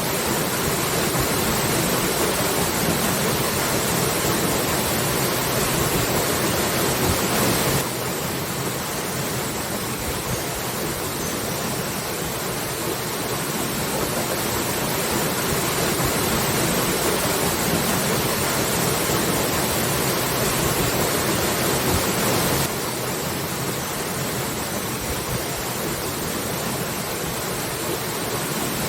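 Waterfall: a steady rush of falling water. Its level and tone shift abruptly twice, about eight seconds in and again past twenty seconds.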